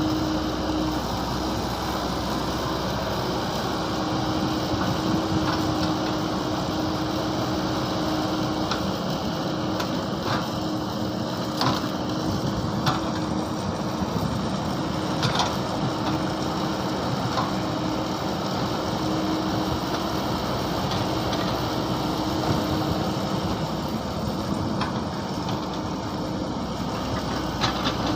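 Mini excavator engine running steadily, with a few short clanks here and there.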